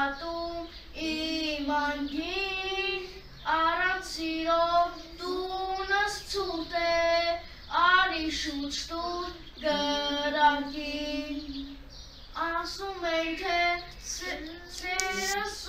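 A young boy singing unaccompanied in a clear, high voice, in phrases of long held notes with short breaths between them.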